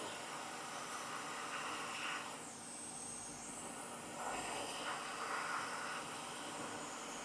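Hot air rework station blowing a steady hiss of air while a capacitor is reflowed onto a logic board.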